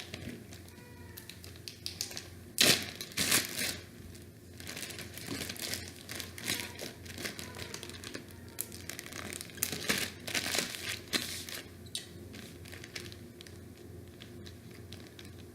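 Irregular crinkling and crackling handling noises, with louder clusters about three seconds in and again about ten seconds in.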